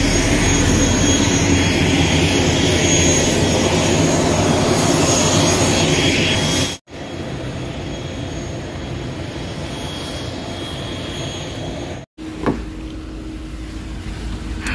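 Aircraft turbine engines running: a loud steady rush with a high whine. The sound breaks off abruptly about seven seconds in, and a quieter steady engine noise follows. Near the end comes a short knock, then a low steady hum.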